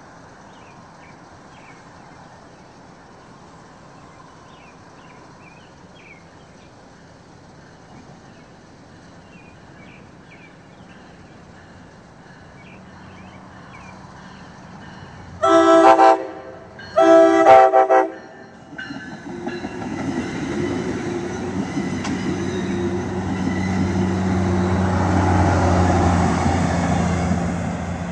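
MARC commuter train's diesel locomotive sounding two loud horn blasts about a second apart. It then approaches and passes with engine rumble and rail noise that build to a peak near the end and begin to ease.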